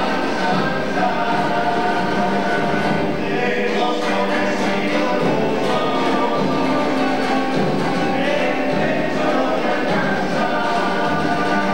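A choir singing.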